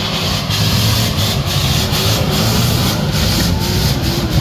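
Nissan Terrano II off-roader's engine labouring hard under load as it climbs a steep, rocky slope, with its tyres churning loose stones and mud in irregular gritty bursts.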